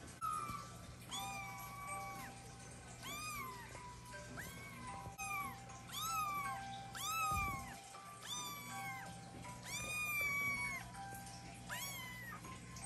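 Ragdoll kitten meowing over and over, a dozen or so high, thin mews, each rising and then falling in pitch, over soft background music.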